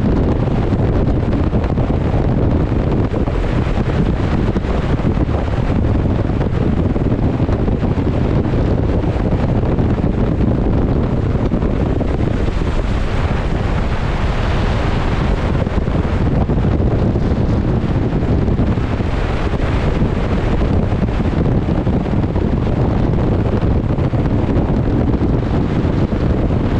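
Strong wind buffeting the microphone, a steady low rumbling rush over the wash of rough open sea, swelling louder and brighter for a few seconds around the middle.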